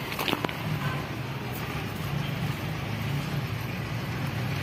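A steady low engine hum, with a few sharp clicks just after the start.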